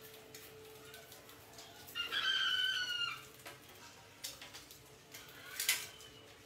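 A single drawn-out animal call about two seconds in, lasting about a second and falling slightly in pitch, over faint scattered clicks and scratches; a sharp click with a rustle near the end.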